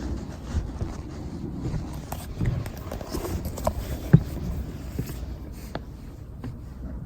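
Scattered light knocks and scrapes, with one sharper knock about four seconds in, over a low rumble.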